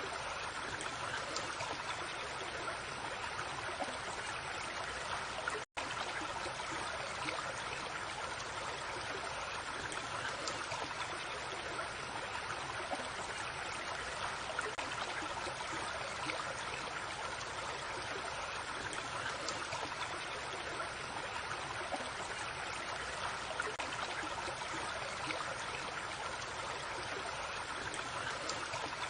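Small stream running over stones, a steady babbling and trickling of water. The sound cuts out for a split second about six seconds in, then carries on unchanged.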